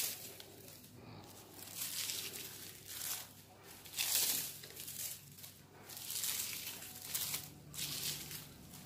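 Plastic raffia strips rustling and crinkling as they are twisted and rolled by hand against bare skin into a spinning-top cord. The rustle comes in repeated strokes, about one a second.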